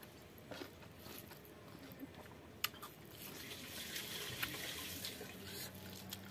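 Fingers mixing and pressing rice into wet pork blood stew on a wooden plate: soft wet squishing and sticky clicks, with one sharp click a little before halfway and a denser patch of squelching for a couple of seconds after it.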